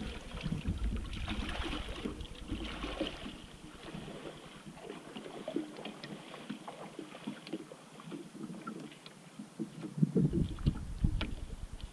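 Wind buffeting the microphone in low gusts at the start and again near the end, over faint splashing and trickling of river water.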